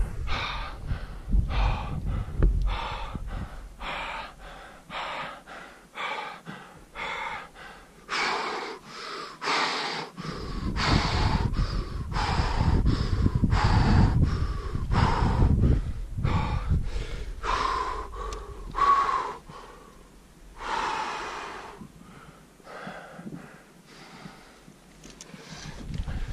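A climber breathing hard and fast at about 6000 m altitude, with a loud breath about every second. It is the laboured breathing of rock climbing in thin air with a heavy pack.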